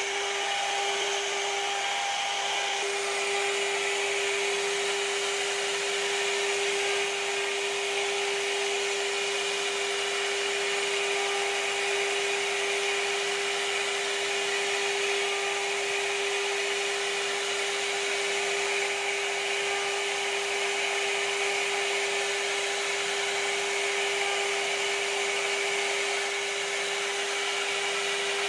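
Blue Elephant CNC router's spindle running at a steady high whine while its bit routes a relief pattern into a wooden door panel, over an even rushing noise of the cut.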